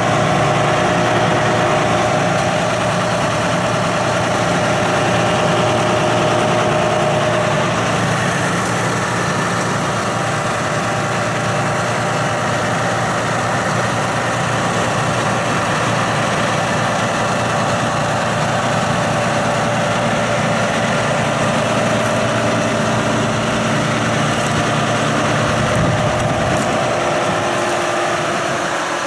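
John Deere 6215R tractor's six-cylinder diesel engine idling steadily.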